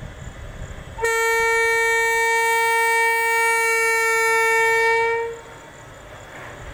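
Horn of a WAG12 twin-section electric locomotive sounding one long steady blast of about four seconds, starting suddenly about a second in and then cutting off.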